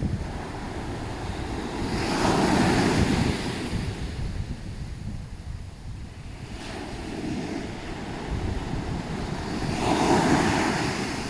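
Ocean waves breaking and washing up a sandy beach. Two big surges of surf come about 2 seconds in and near the end, with a smaller one between them.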